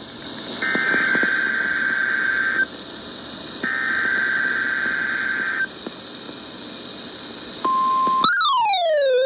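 Emergency Alert System SAME header data bursts over NOAA Weather Radio: buzzing, screechy modem bursts about two seconds long with a second's pause between them, the last ending about five and a half seconds in. About two seconds later a steady 1050 Hz warning alarm tone starts, and within a second a siren-like alarm tone joins it, sweeping down and back up.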